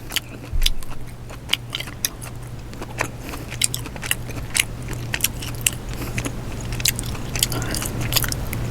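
Close-miked eating: a peeled crawfish tail dipped in seafood butter sauce being bitten and chewed, with many small wet clicks and smacks of the mouth.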